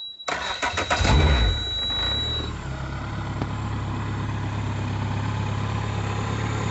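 Suzuki DF140 four-stroke outboard being started in neutral: a high warning beep sounds as the starter cranks briefly, the engine catches about a second in, revs up and then settles into a steady idle. It starts and idles smoothly, running like a top with the idle air valve reset.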